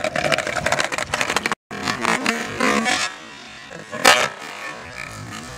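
Skateboard wheels rattling over paving, then about four seconds in a single sharp clack as the board lands off a concrete curb.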